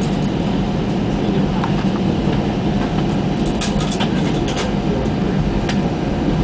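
Steady cabin noise inside an Airbus A320 taxiing before takeoff: engines at idle with a low drone, and a few light rattles about halfway through as the aircraft rolls.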